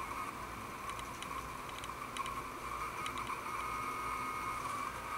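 Quiet, steady room noise with scattered faint light clicks.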